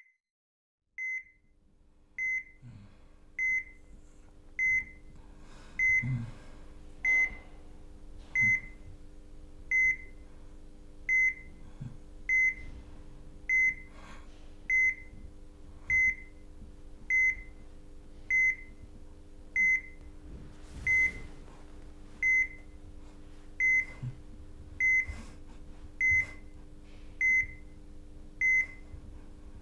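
Hospital patient monitor beeping steadily, a short high beep about once every 1.2 seconds, over a low steady electrical hum.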